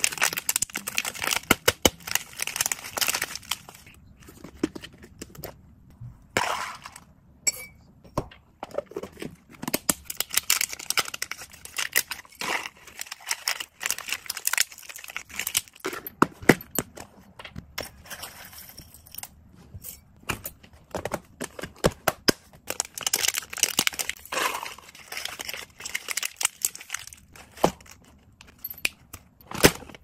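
Clear plastic packaging crinkling and dry hamster food (dried flower and vegetable flakes) rustling as it is handled and poured into plastic boxes, with many sharp clicks and taps.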